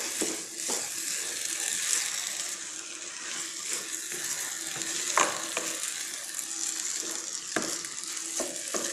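Raw polao rice sizzling as it fries in oil and spice paste in a pan, a steady hiss, while a wooden spatula stirs it and knocks against the pan a few times.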